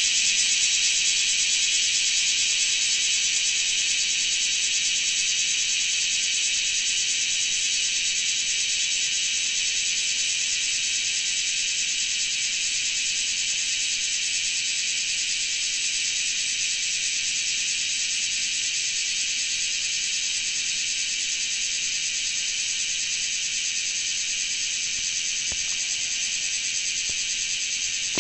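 Large brown cicada (Graptopsaltria nigrofuscata) singing: a steady, noisy, high-pitched rasping drone, easing slightly in loudness as it goes.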